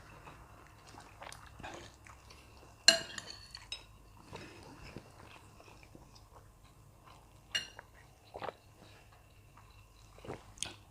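Eating at the table: cutlery clinking against a plate a few times, the loudest clink about three seconds in, with soft chewing between.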